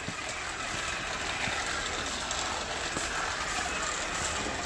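A battery-powered remote-control toy tractor drives across a concrete floor, its small electric motor and plastic gears making a steady mechanical noise with a few faint ticks.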